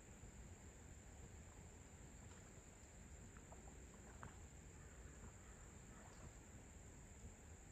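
Faint, quiet outdoor ambience: a steady high-pitched insect drone, such as crickets, over a low rumble, with a few soft short chirps.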